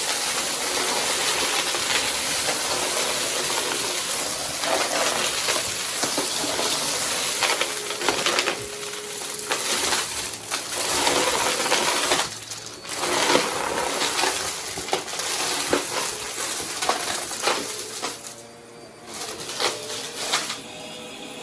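Vacuum cleaner running fast over the floor, sucking up small hard debris that crackles and clinks as it is pulled in, with brief lulls about halfway and near the end.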